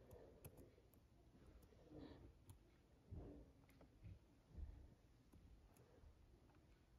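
Faint, scattered clicks of a computer being clicked through, irregularly spaced, with a few soft low bumps in between.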